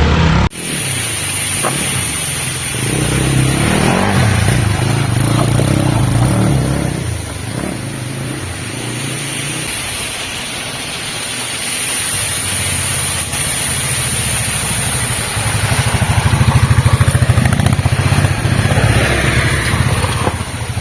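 Motorcycle engine running, its revs rising and falling, loudest in the last few seconds.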